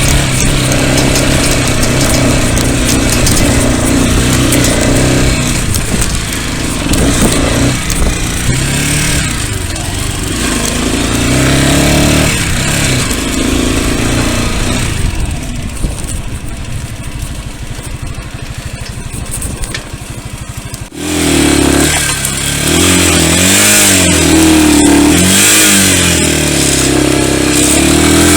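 Pit bike engines running while riding, the revs rising and falling with the throttle. About three-quarters of the way through, the sound cuts abruptly to a closer engine note that wavers up and down.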